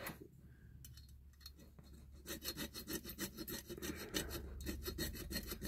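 Thin steel needle file worked back and forth against a diecast metal toy body, prying at a fitted back piece: quiet at first, then a quick run of short scraping strokes from about two seconds in.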